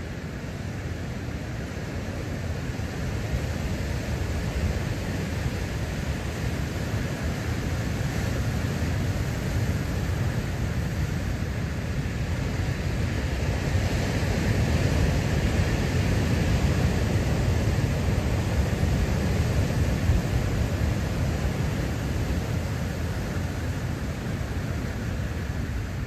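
Big ocean surf breaking and washing over a rocky lava shoreline: a continuous deep rush of waves that builds about halfway through and eases toward the end.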